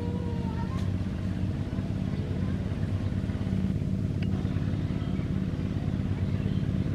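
Tractor diesel engine running steadily, with a fast, even pulse.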